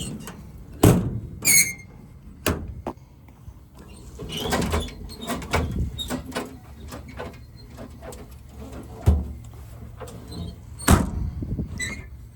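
Steel drawers and compartment doors of a truck's service body being slid open and shut: a string of sliding rattles and sharp metal knocks and clanks, one ringing metallically about one and a half seconds in.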